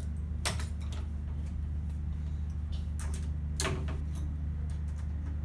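Wireline cable and hand tools being handled on a bench: a few sharp clicks, the loudest about three and a half seconds in, over a steady low hum.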